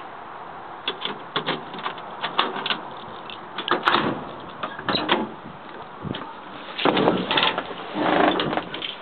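Driver's door of a 1970 Dodge D100 pickup being opened and someone climbing into the cab: a run of small clicks and knocks, a sharp latch click about four seconds in, then heavier bumps and rustling near the end. The engine is not running.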